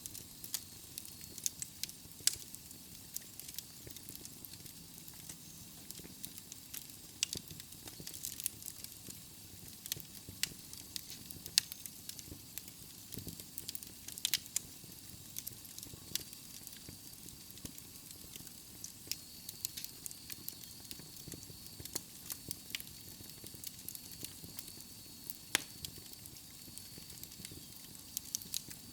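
Wood logs burning in a fireplace, crackling with irregular sharp pops over a soft steady hiss.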